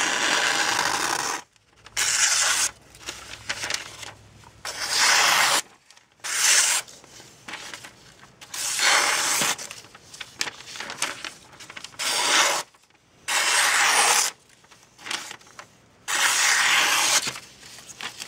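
Kershaw Knockout folding knife slicing through a sheet of newspaper: about eight separate rasping cuts, each lasting up to a second or so, with short pauses between strokes.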